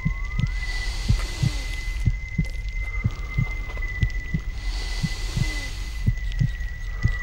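Heartbeat sound effect: low, regular thumps about twice a second, under a steady high-pitched whine, with two soft swells of hiss.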